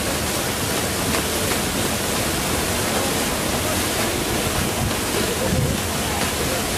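Water jet from the Merlion statue's mouth falling into the bay: a steady rushing splash.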